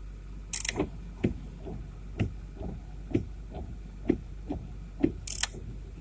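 2008 Ford F-350's 6.4-litre Powerstroke V8 turbo diesel idling as it warms up after a cold start without glow plugs. A steady low hum runs under a regular knock about twice a second, with two short sharp high-pitched bursts, one about half a second in and one near the end.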